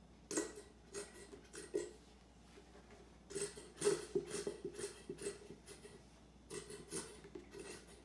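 Plastic squeeze bottle of chocolate syrup squeezed upside down, squirting and sputtering syrup into a blender jar in three bouts of short irregular spurts.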